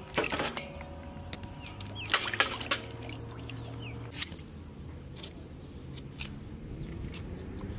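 Water splashing in a steel basin as vegetables and herbs are tipped in from a plastic colander and rinsed by hand, with a few sharp knocks against the basin, strongest about two seconds in and again about four seconds in.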